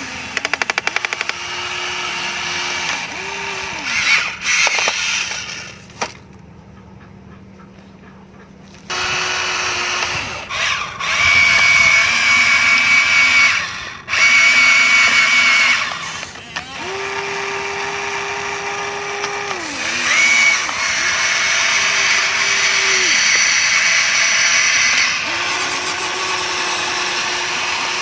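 Small electric gear motors of a Huina radio-controlled toy excavator whining as it drives on its tracks and swings and moves its arm. The whine comes in runs of a few seconds that start and stop abruptly, with a quieter pause a few seconds in.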